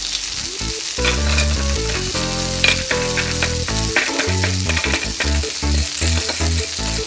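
Sizzling of food frying in a pan, standing in for stir-fried vegetables, with short clicks as plastic toy pieces are stirred with a plastic spatula.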